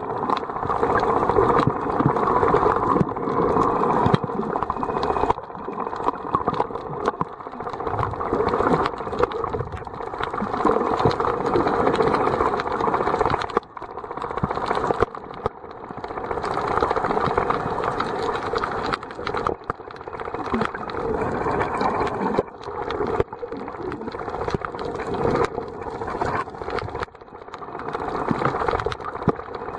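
Underwater noise picked up by a submerged camera while snorkeling: a dense, muffled crackling rattle of water against the housing that swells and fades every few seconds.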